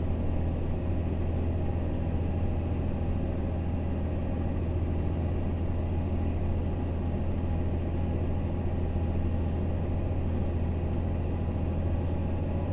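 Fendt 939 tractor heard from inside its cab: a steady low engine drone, running at about 1,600 to 1,700 rpm while pulling fairly hard under load.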